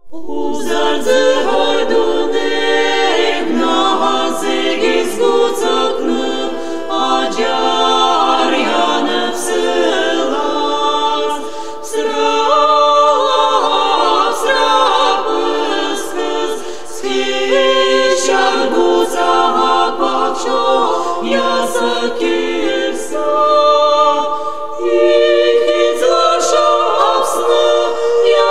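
Unaccompanied choir singing slow, sustained chords in several voice parts, with no instruments. The singing begins abruptly right at the start.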